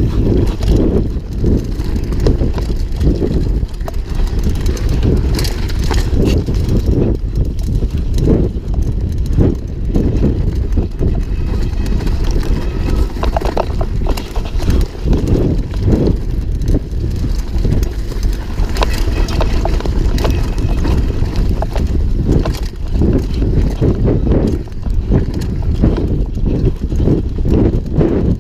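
Downhill mountain bike, a Banshee Legend, rattling and knocking as it runs fast over a rough dirt trail, with tyre noise and a steady rumble of wind on the microphone.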